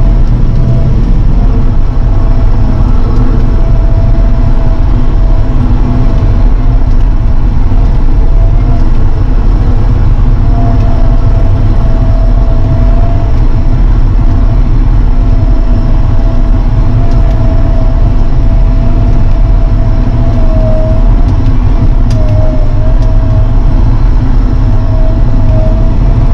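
Tractor engine running steadily under load while pulling a plough, with a steady high whine above the engine noise that wavers a little near the end.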